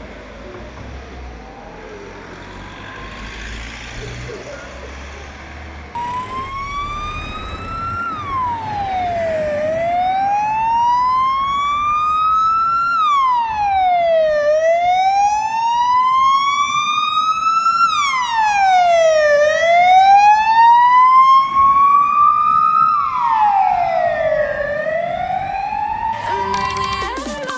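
Ambulance siren in a wail: the tone climbs over about three seconds and drops quickly, repeating about every five seconds, faint at first and much louder from about six seconds in.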